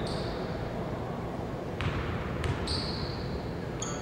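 A basketball bouncing on a hardwood court, two sharp bounces about two seconds in, with short high sneaker squeaks over a steady gym hum.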